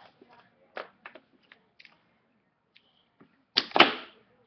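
Small plastic wrestling action figures handled and knocked against a wooden floor: scattered light clicks and taps. About three and a half seconds in comes a loud, short rushing whoosh with a sharp knock in the middle of it.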